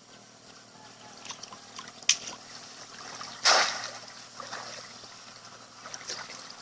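Water trickling and splashing, with scattered small drips, a sharp tap about two seconds in, and one louder splash midway.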